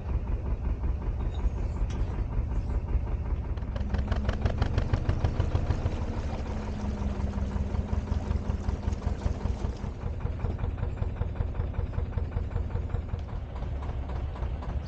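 Narrowboat engine running with a fast, even chugging. It gets louder and busier from about four seconds in, then eases back near the ten-second mark.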